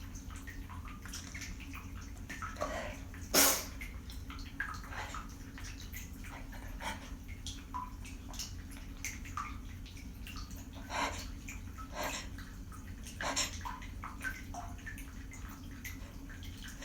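A person breathing and sniffling between sneezes: scattered small sniffs and breaths, with one sharper, louder intake about three and a half seconds in, over a steady low hum.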